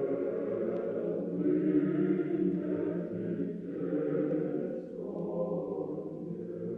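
Choral chant: several voices holding long, steady notes that change pitch every few seconds.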